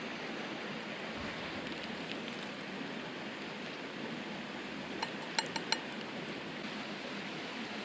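Steady rush of river water. About five seconds in come four quick clinks of kitchenware.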